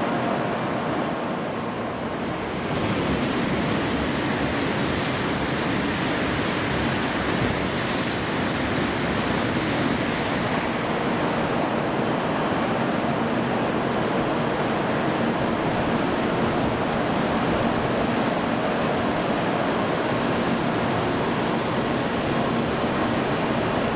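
N700-series Shinkansen train pulling out of the platform and rolling past, a steady loud rushing noise that swells about three seconds in.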